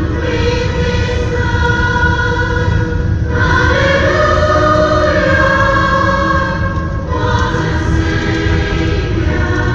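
Choir singing Christian music in long held chords, moving to a new chord about every three to four seconds.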